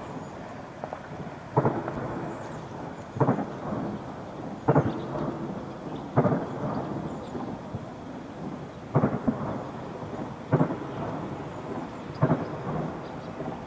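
Heavy gunfire in the distance: about eight sharp bangs, mostly a second and a half apart, each followed by a rolling rumble.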